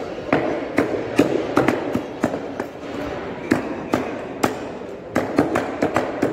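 Butcher's cleaver chopping chicken on a wooden chopping block: sharp chops in quick runs of several a second, with a short lull near the middle.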